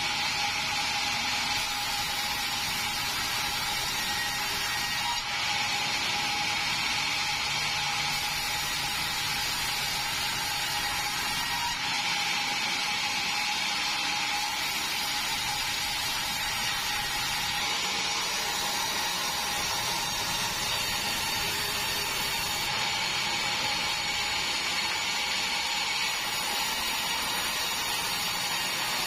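Large vertical band sawmill running, its blade sawing through meranti timber: a steady high hiss with a constant tone beneath it.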